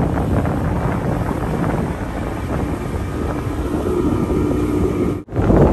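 Motorboat engine running under way, with wind buffeting the microphone. The sound drops out for a moment near the end.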